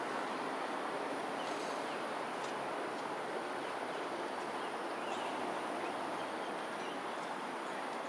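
Steady outdoor background noise, an even hiss-like hum, with a few faint high chirps or ticks about two and a half and five seconds in.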